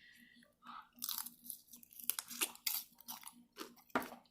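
Close-up chewing of shrimp stir-fry in coconut curry sauce: irregular wet mouth clicks, smacks and crunches, with one sharper click near the end.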